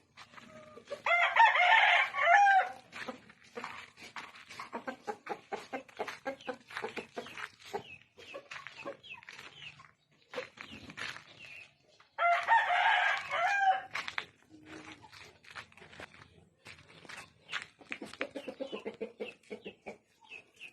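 Shamo rooster crowing twice, about ten seconds apart, with short clucking calls in between.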